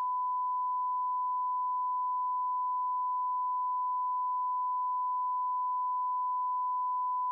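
A steady, unbroken pure beep tone, the "signal lost" sound effect of a dead video feed, like a broadcast test tone.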